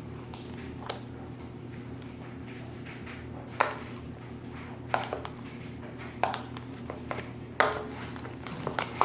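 A utensil knocking against a mixing container while slime is stirred: a handful of sharp, irregular knocks over a low steady hum.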